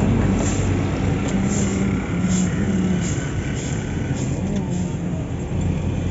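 Steady low rumble of road traffic, with an engine-like hum.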